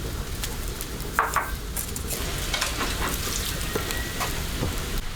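Food sizzling in a hot wok while a spatula stirs it, with scattered short scrapes against the pan.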